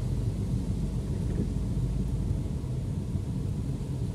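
Steady low rumble of a car in motion heard from inside the cabin: engine and tyres on a wet road.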